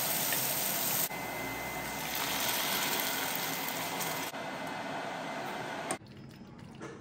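Steady rush of running water, in clips that cut off abruptly about one, four and six seconds in. After the last cut it drops to a faint background with a few light clicks.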